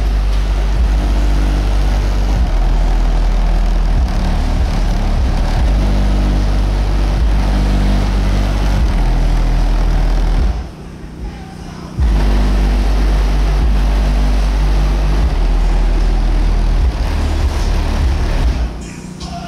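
Car sound system with a large subwoofer playing music at high volume, heavy deep bass leading. The bass and music cut out for about a second and a half around the middle, then come back.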